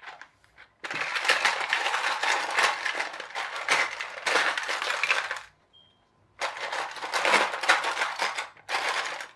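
Loose plastic building bricks clattering and rattling as hands rummage through a plastic storage tub of them, in two long bouts with a short pause about halfway through.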